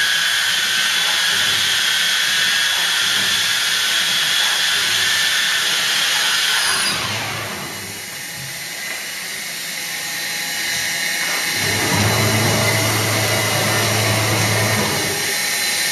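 CNC router's high-speed spindle running with a high whine and hiss, fading away about seven seconds in. From about twelve seconds a steadier low machine hum with hiss takes over.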